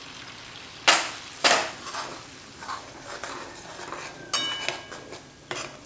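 A steel spoon scraping and knocking against a steel kadhai while stirring gram flour and semolina into hot ghee. Two sharp scrapes about a second in are the loudest, followed by softer strokes and a brief metallic ring near four seconds.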